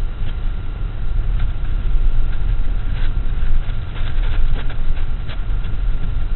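Pickup truck driving slowly over a rough grass field, heard from inside the cab: a steady low engine-and-road rumble, with a cluster of clicks and knocks about three to five seconds in as it goes over bumps.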